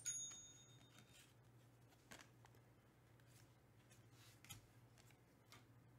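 Faint soft swishes and flicks of trading cards being slid one from the front of a hand-held stack to the back, a few times, over a faint low hum.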